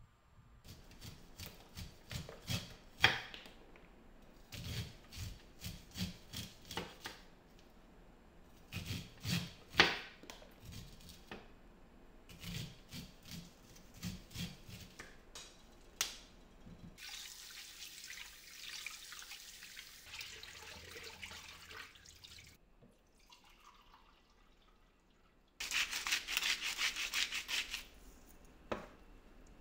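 A knife shaving raw corn kernels off the cob onto a wooden cutting board: groups of short rasping cutting strokes with a few sharper knocks. After that, two stretches of water pouring, the second one louder and about two seconds long.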